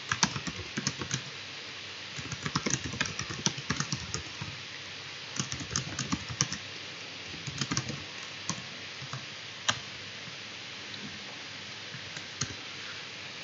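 Computer keyboard typing in short irregular bursts of key clicks, then only a few single clicks in the last few seconds, over a steady hiss.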